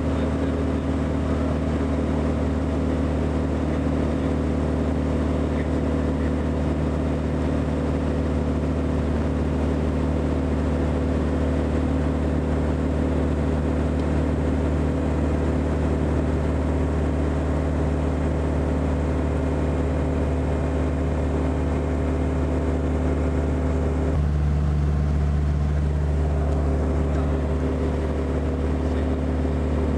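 Aircraft engine drone heard inside the cabin in flight, steady and loud with a layered hum. About four-fifths of the way through, the note changes and the low drone gets a little louder.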